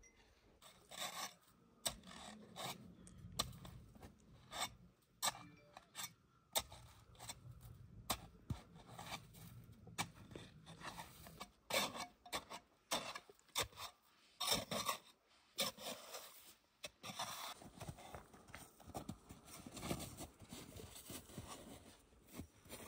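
Packed snow being scraped and crunched, in short, irregular rasping strokes.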